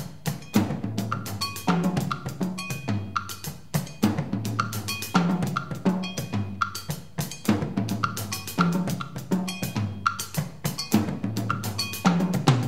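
Two percussionists playing a fast, steady, interlocking pattern on drums: deep pitched drum strokes cut through by short, high ringing clanks.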